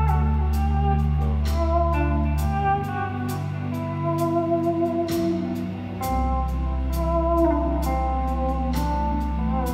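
Live electric blues-rock band playing a slow song: electric guitar melody lines over long held bass notes, with drums keeping time on the cymbals.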